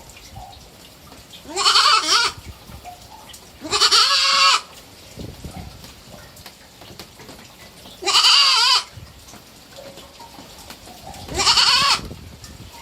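A three-month-old pet goat kid bleating four times, each call under a second long and a few seconds apart, with a wavering pitch.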